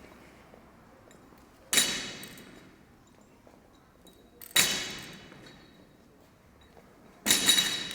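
Three loud metallic clangs, evenly spaced about three seconds apart, each ringing briefly as it fades: a loaded barbell dropped or set down hard between reps.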